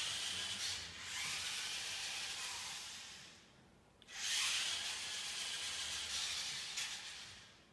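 Harsh electronic hiss in long surges: the noise fades out after about three seconds, breaks off briefly, then comes back suddenly and fades away again near the end.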